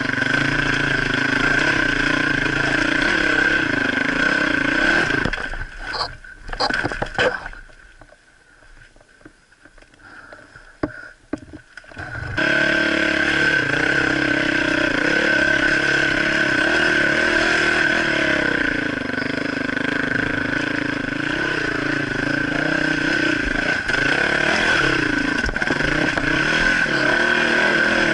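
Dirt bike engine running and revving, its pitch rising and falling with the throttle. About five seconds in the engine sound falls away, leaving a few sharp clicks and knocks. It comes back suddenly at full level about twelve seconds in and runs on.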